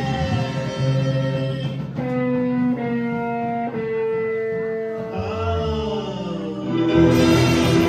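Live rock band with trumpet, two electric guitars, bass and drums playing a held, stepping melodic line. The cymbals drop out for a few seconds, and the full band comes back in louder about seven seconds in.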